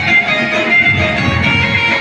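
Loud dance music accompanying a stage dance, with a steady beat and a held melody line.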